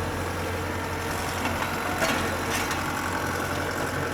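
Diesel engine of a farm machine running steadily at low speed, with a couple of short clicks about halfway through.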